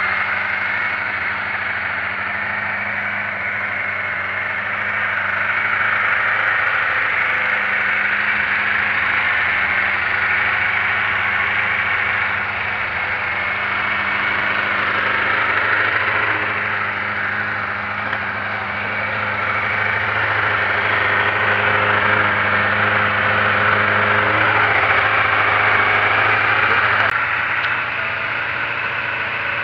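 Honda CBR600 inline-four motorcycle engine, fitted in a go-kart, idling steadily. Its pitch and loudness dip slightly near the end.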